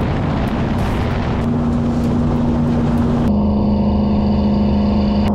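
Jet boat engine running steadily under way, a constant drone over the rush of water and wind; its pitch shifts slightly twice.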